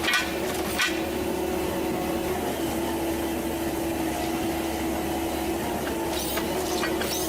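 A large machine running steadily with a constant hum, with a few sharp metallic knocks about a second in and again near the end.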